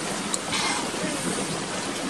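Steady rush of flowing stream water, with a short click about a third of a second in and a brief brighter hiss just after.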